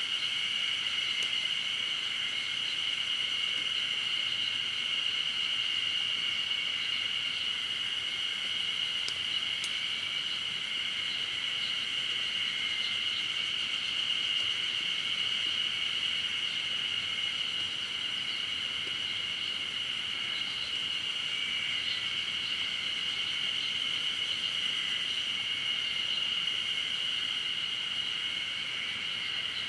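Dense chorus of insects singing together, a steady high-pitched drone that never breaks, over a faint low hiss.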